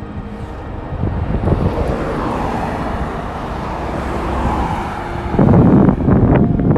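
Road traffic passing on the street: a vehicle's noise swells and fades over a few seconds, then a louder, deeper rumble comes in near the end.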